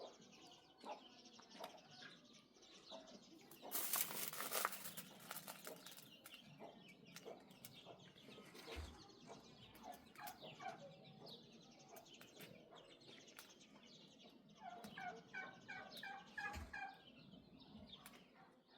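Faint runs of short, evenly repeated animal calls, a quick series of about five a second near the end, with a brief louder rush of noise about four seconds in.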